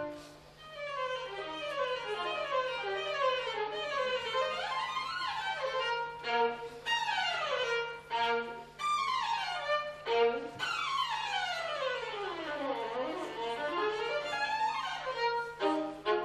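Unaccompanied solo violin playing fast virtuoso passagework: rapid scale and arpeggio runs that sweep up and down across several octaves.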